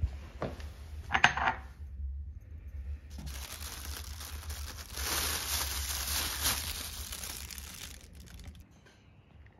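A few sharp knocks and clicks as a plastic bottle and trash bag are picked up, the loudest about a second in, then a thin plastic trash bag rustling and crinkling for several seconds while it is handled, dying away near the end.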